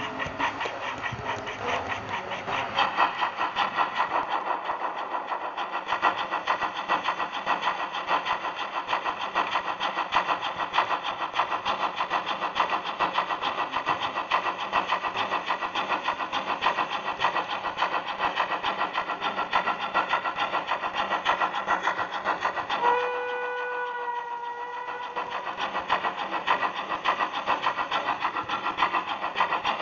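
Model BR 80 steam tank locomotive running along the track, with a rapid, steady pulsing running noise close to the onboard camera. About 23 seconds in, a whistle sounds for about two seconds.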